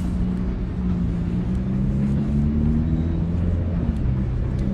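A motor vehicle's engine running close by, its pitch rising slowly through the middle.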